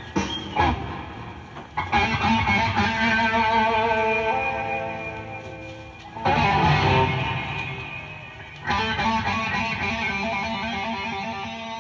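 Background rock music: electric guitar chords struck and left to ring, a new chord every few seconds, fading near the end.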